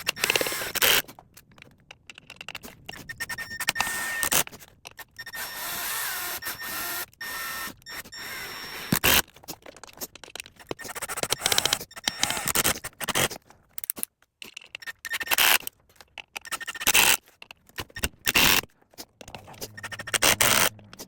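Long screws being driven into the plastic speaker mounting housing of a car door, cutting their own new holes, in repeated bursts with short pauses between.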